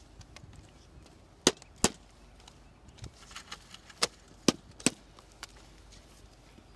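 Mallet knocking connector clips into the seams of interlocking plastic Supa-Trac matting: two sharp knocks about a second and a half in, then three more between about four and five seconds in.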